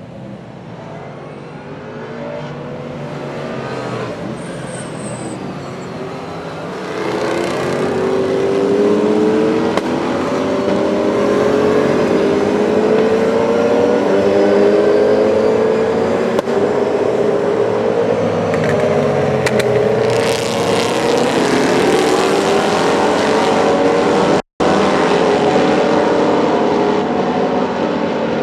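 Several V8 racing saloon cars at full throttle, engines revving up and down through gear changes as they approach and pass. The sound builds over the first several seconds, then stays loud, and cuts out for an instant near the end.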